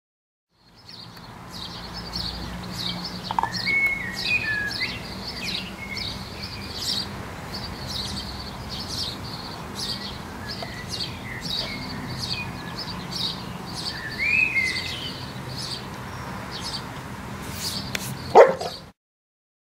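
Garden birds chirping over and over, with a few gliding song notes, above a low steady hum. Near the end a dog gives one short, sharp cry, the loudest sound.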